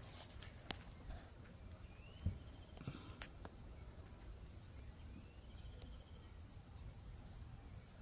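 Faint steady high-pitched insect chorus, with a few soft clicks and two faint rising whistles.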